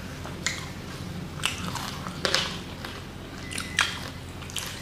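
Close-up mukbang eating sounds: chewing and wet lip-smacking on saucy fried chicken lollipop, with several sharp smacks at irregular intervals.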